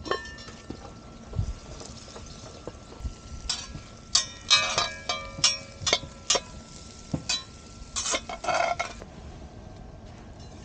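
Metal clinking and clanking on a Lodge 5-quart cast-iron Dutch oven hung from a chain over a campfire, as its lid, wire bail and chain knock together and a utensil works in the pot. Several of the knocks ring briefly, and the clatter is thickest around the middle.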